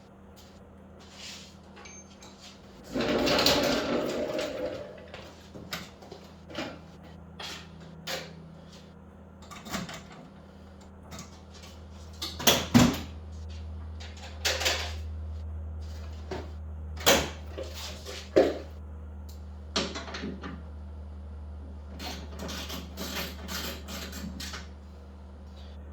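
Scattered clicks, knocks and clatter of hand tools and motorcycle parts being handled, with a louder rustling clatter about three seconds in. A steady low hum runs underneath and grows louder about ten seconds in.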